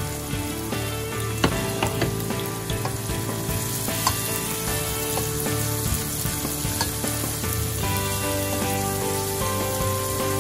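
Chopped onions sizzling as they fry in oil in a stainless steel pot, with a steady hiss and a few sharper crackles. A spoon stirs them through the pot.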